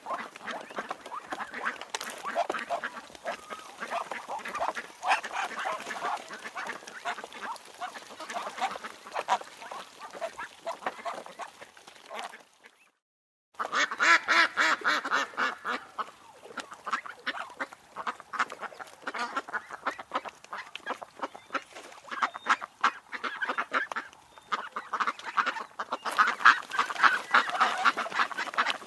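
A flock of ducks quacking and calling over one another, a dense, continuous chorus. It breaks off for about half a second a little under halfway through, then another flock recording picks up.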